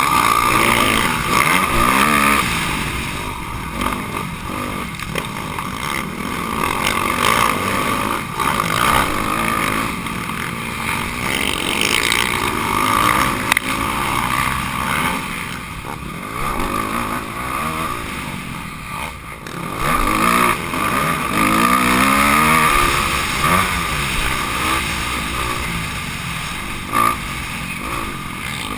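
Honda CRF250R motocross bike's single-cylinder four-stroke engine revving up and falling back over and over as it is ridden hard, heard from on the bike itself.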